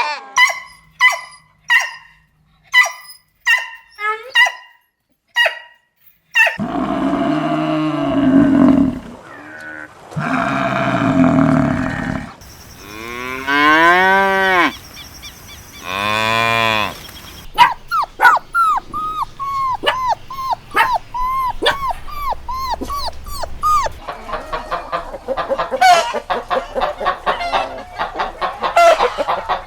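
A run of different farm animal calls, one kind after another, cow moos and dog barking among them: short evenly repeated calls at first, then two long low moos, a long call that rises and falls, and fast strings of short calls near the end.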